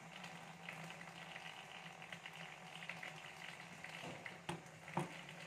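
Faint crackling and popping of honey draining out of freshly cut wild honeycomb, over a low steady hum, with two short knocks near the end.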